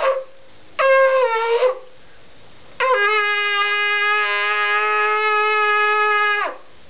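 A 25-inch ram's horn shofar being blown: a short blast of about a second that slides down in pitch, then a long, steady blast of about three and a half seconds that drops off at the end.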